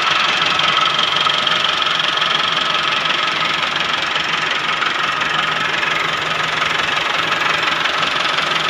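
Massey Ferguson 385 tractor's four-cylinder diesel engine idling steadily, heard close up beside the engine block.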